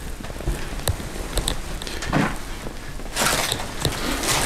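Footsteps crunching and scuffing over a floor littered with fallen plaster debris, with scattered sharp clicks early on and louder scraping scuffs from about halfway through.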